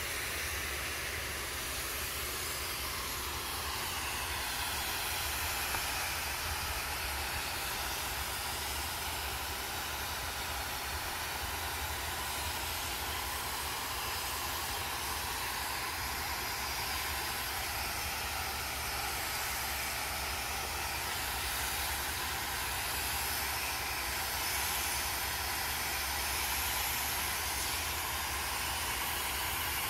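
Steady hissing noise with a low hum underneath, unchanging throughout.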